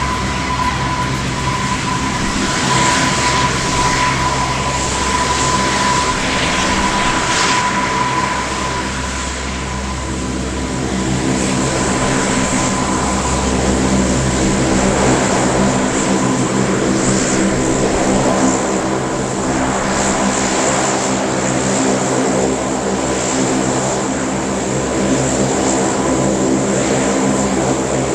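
The four Allison T56 turboprop engines of a Lockheed AP-3C Orion run steadily just after landing: a loud, even propeller drone with a high turbine whine. The whine is strongest for the first several seconds and then fades a little.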